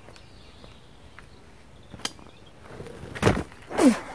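A folding carp fishing chair tipping over backwards under a man sitting in it: a light click about two seconds in, a heavy thud a little after three seconds as chair and man hit the grass, then a short shout falling in pitch.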